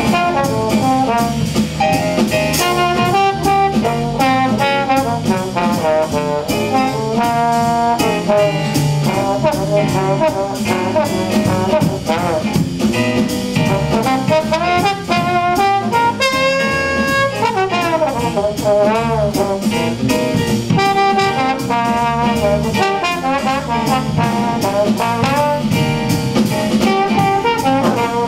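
Jazz trombone soloing over a band: one trombone plays a flowing melodic line with slides and bends, backed by drum kit cymbals keeping a steady beat and the rest of the rhythm section.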